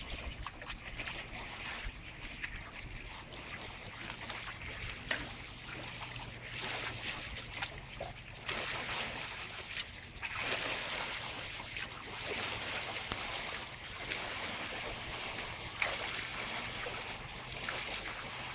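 Lake water washing and splashing in small waves, swelling and easing every few seconds, with scattered sharp clicks and wind on the microphone.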